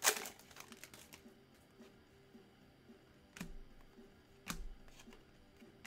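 Trading cards being handled on a table: a few sharp taps and clicks, one at the start and two more in the second half, over a faint low hum.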